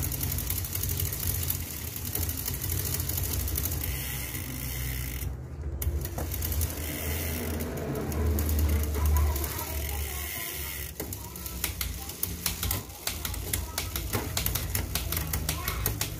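Bicycle drivetrain turning on a workstand: the chain runs over a 10-speed cassette and through an Ltwoo A7 rear derailleur as the rear wheel spins, with a low hum. About eleven seconds in, the drive stops and the cassette freehub clicks rapidly as the wheel coasts.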